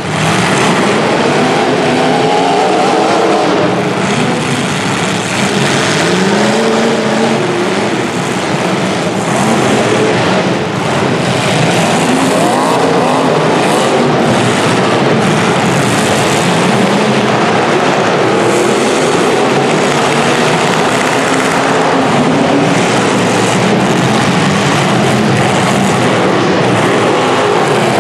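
Several demolition derby cars' engines revving and running hard at once, with pitches rising and falling continuously.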